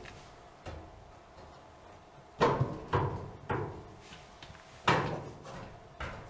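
About six sharp knocks and clanks of clothes dryer parts being handled and set in place during reassembly, each with a short ring. The loudest come about two and a half and five seconds in.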